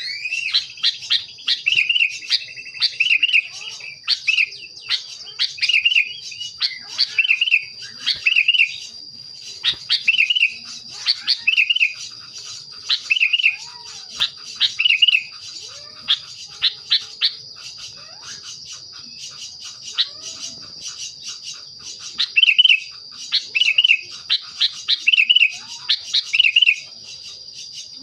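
Sooty-headed bulbul (kutilang) calling over and over: short bubbly phrases about once a second, with sharp chips in between, pausing for a few seconds past the middle. A steady high-pitched whine runs underneath.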